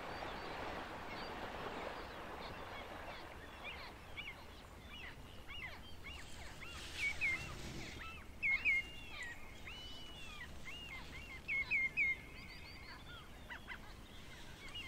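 Water splashing from animals swimming across a lake, fading after the first few seconds, then a run of short bird chirps and whistles, loudest a little past halfway.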